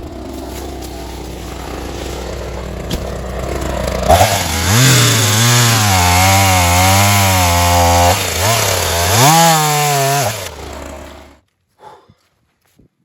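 Two-stroke Ryobi gas chainsaw idling, then revving up at about four seconds and cutting under load, its pitch wavering as it works through the wood, with a brief let-off near eight seconds. It winds down and is shut off about two seconds before the end.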